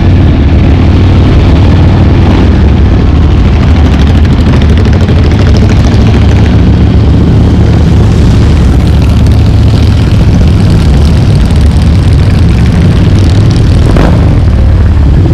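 Motorcycle engines rumbling loudly and steadily as bikes ride past along the street.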